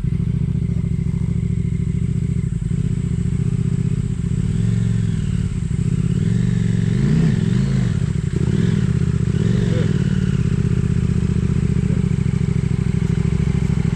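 Motorcycle engine running steadily, with the engine note rising and falling several times in the middle as the throttle is worked.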